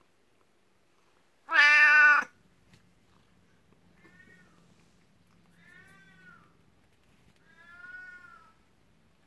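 Domestic cat meowing: one loud, drawn-out meow held on a level pitch about one and a half seconds in, then three softer meows that rise and fall in pitch, about two seconds apart.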